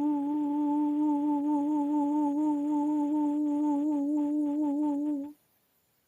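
A woman humming one steady note with a slight waver, imitating the musical tone she says she hears. It stops abruptly about five seconds in.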